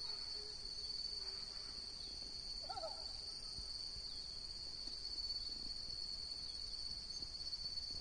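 Steady high-pitched chorus of insects, faint, with a brief chirp about three seconds in.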